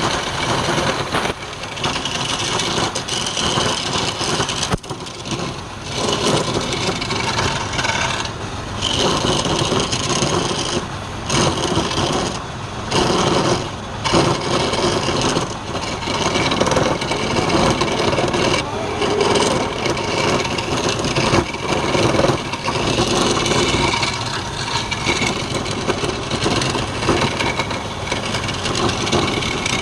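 Wood lathe running with a tool working the spinning wood, the sound swelling and dipping in uneven passes.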